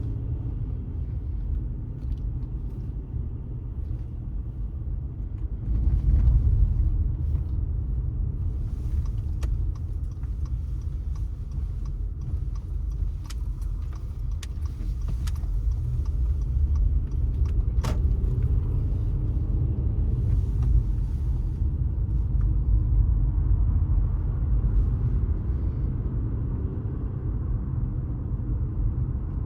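Car driving on city streets: a steady low rumble of engine and tyre noise, briefly louder about six seconds in, with a few faint scattered clicks.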